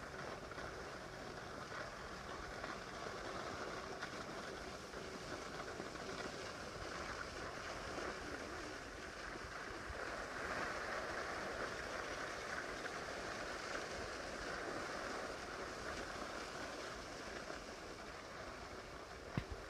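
Steady hiss of skis gliding and scraping over packed snow, swelling a little about halfway through, with a single short knock near the end.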